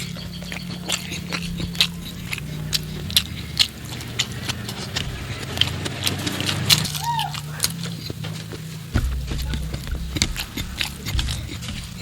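Close-miked eating: wet chewing and lip-smacking clicks, several a second and irregular, over a low steady hum. A brief squeak about seven seconds in.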